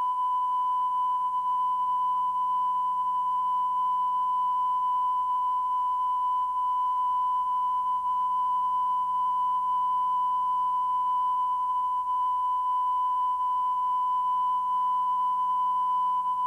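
A steady test tone held on a single pitch after a TV station's sign-off, with a faint low hum beneath it. It cuts off suddenly at the very end.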